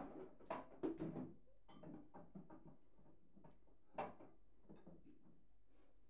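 Light kitchen clatter as a wall-cupboard door and dishes are handled: a run of clicks and knocks in the first second or two, then one sharper knock about four seconds in.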